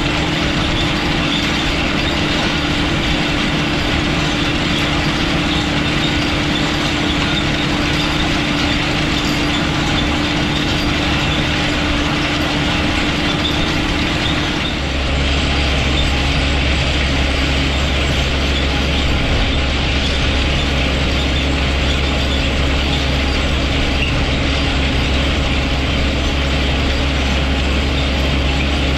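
JCB Fastrac 1125 tractor running steadily while pulling harrows across a field, with a continuous mechanical rattle. About halfway through, a deeper, low drone comes in and holds.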